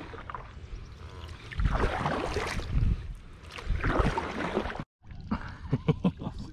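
Canoe being paddled: two long swishing paddle strokes through the water about two seconds apart, then a few short, sharp sounds near the end.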